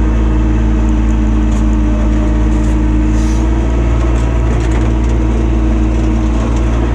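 ATV engine running steadily while riding, with a strong low rumble and a few light knocks.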